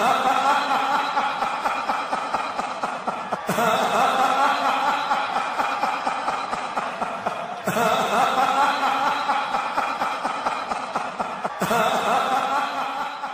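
Human laughter, a short passage that repeats as a loop about every four seconds and fades out at the end.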